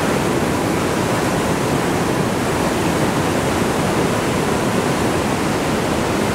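Rhine Falls: a loud, steady rush of falling water crashing into the churning white water of the basin at its foot.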